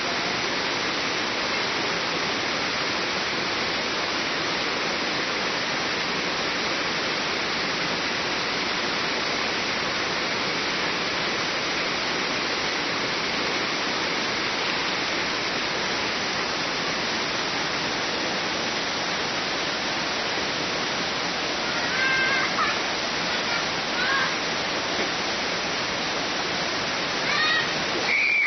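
A waterfall rushing steadily: a constant, unbroken wash of falling water.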